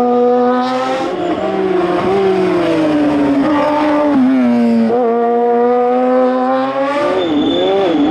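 Hill-climb race car's engine running hard at high revs, its pitch dropping and jumping back up with gear changes about a second in and again near five seconds in, then wavering as the driver works the throttle.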